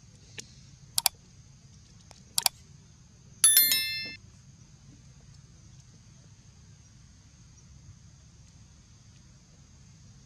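Three sharp clicks in the first two and a half seconds, then a single bright ding about three and a half seconds in that rings and fades within about a second, over a steady faint high hiss.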